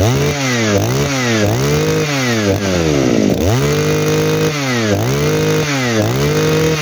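Two-stroke engine of a used Echo brush cutter being revved again and again: the throttle is opened and released about seven times, the pitch climbing to high speed and falling back each time. Twice it is held at full speed for about a second. It picks up and settles cleanly, which the seller takes as a sign that the engine runs very well.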